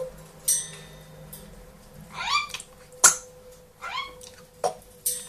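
Pet parrot making two short, rising calls, about two and four seconds in, with several sharp clicks in between.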